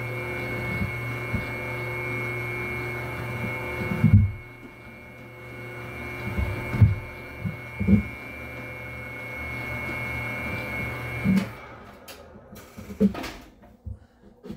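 Electric dough mixer running with a steady hum, with a few loud knocks about four, seven and eight seconds in. The motor cuts off about eleven seconds in, followed by scattered knocks and clatter.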